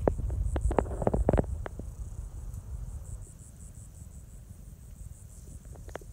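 Footsteps crunching through dry grass and brush with rustling, stopping about a second and a half in; then insects chirping in a steady, pulsing high-pitched drone.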